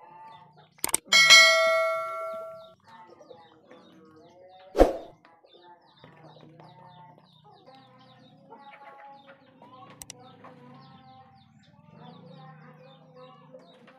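A click, then a loud metallic ding about a second in that rings for about a second and a half. A short, sharp, loud burst comes near five seconds. Through the rest there is soft, low clucking and faint chirping of chickens.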